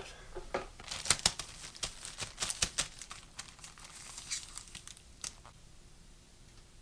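Plastic tortilla bag crinkling as it is handled and worked open, a dense run of crackles that dies away after about five seconds.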